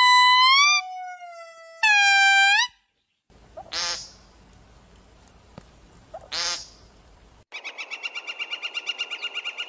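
A string of different animal calls cut one after another. First come clear whistle-like calls that rise at their ends, then two short raspy calls, then a rapid pulsing trill of about six pulses a second.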